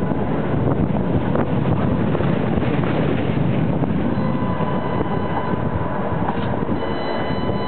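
Tatra T5C5 tram running along its track, a steady rumble of wheels on rail mixed with wind buffeting the microphone held out of the window. A faint whine joins in near the end.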